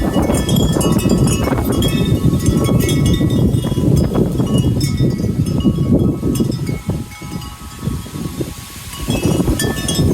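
Wind chimes ringing in gusty wind, many metallic tones overlapping, over heavy wind rumble on the microphone. The wind eases about seven seconds in, then picks up again near the end.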